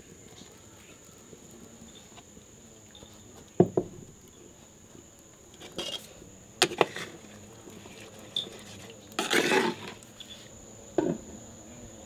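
Cooking pots, lids and utensils being handled: a handful of sharp knocks and clinks, then a longer clattering scrape about nine seconds in. A steady high-pitched insect drone runs behind.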